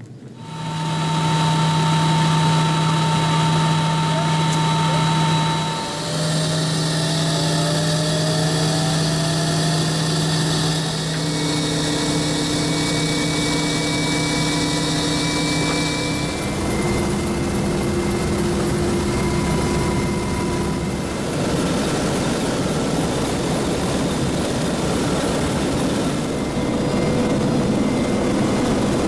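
Loud, steady cabin noise inside a CH-149 Cormorant helicopter in flight: the three turboshaft engines and the transmission whine over the rotor's drone. Its steady tones shift in pitch and balance a few times.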